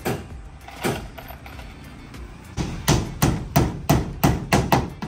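Hammer driving nails into a wall sheathing panel: two blows, a pause, then a quick run of about eight blows at roughly three a second.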